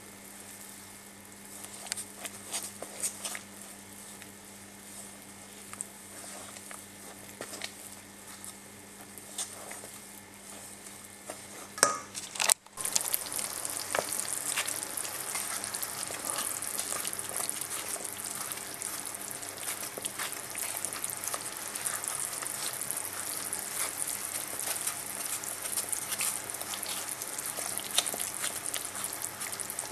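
Hot fat sizzling and crackling in a stainless steel pan, with scattered sharp pops. After a brief break about twelve seconds in, the sizzling comes back louder and denser.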